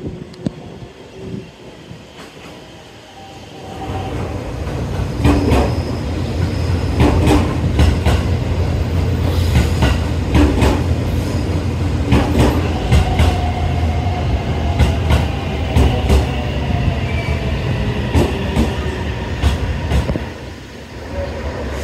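JR Central 313 series electric multiple unit pulling in alongside a station platform. The wheel rumble rises sharply about four seconds in and continues, with repeated clicks of the wheels over rail joints and a whine with some wheel squeal as the train slows to a stop.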